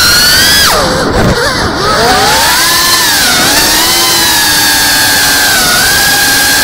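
FPV quadcopter's brushless motors and propellers whining loudly. About a second in, the pitch drops sharply as the motors slow, then climbs back, dips once more briefly, and settles into a steady high whine.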